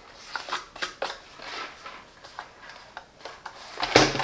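Scattered light clicks, taps and rubbing of hard plastic as a robot vacuum cleaner is turned over and handled, with a louder knock about four seconds in.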